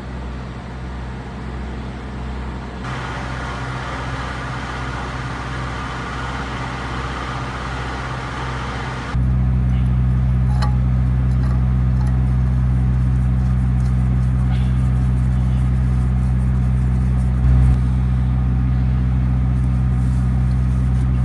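Steady low drone of a running diesel engine. About nine seconds in it suddenly becomes much louder and stays steady, with a brief louder bump near the end.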